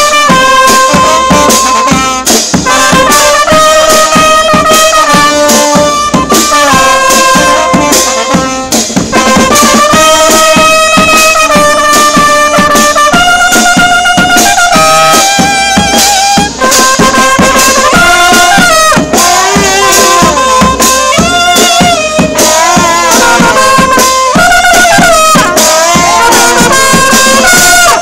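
Charanga brass band playing a lively tune close by: trumpets, trombone and saxophone carrying the melody over a bass drum with cymbal, very loud throughout and stopping abruptly at the end.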